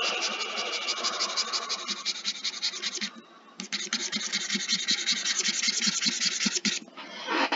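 Pen stylus scratching across a graphics tablet in rapid back-and-forth hatching strokes, in two runs with a short pause about three seconds in.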